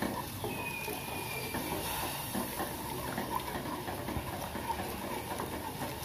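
Wooden spatula stirring ginger juice and palm sugar in an enamel saucepan on a gas stove: soft scrapes and light taps against the pan over a steady hiss of the liquid heating. The stirring dissolves the palm sugar as the ginger juice comes toward the boil.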